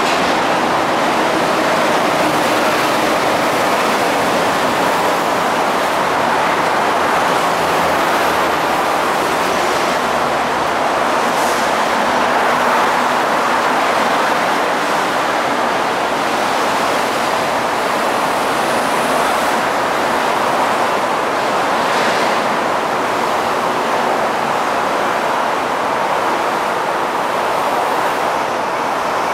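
Steady, even rushing background noise with no distinct events; no train passes.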